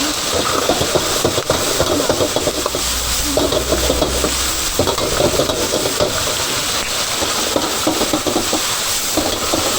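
Chicken being stir-fried in a wok: a metal spatula scraping and tossing in quick strokes while the meat sizzles in hot oil.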